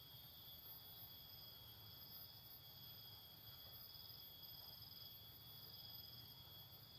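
Faint, steady chorus of insects, several high thin tones held without a break, over a low hum of background noise.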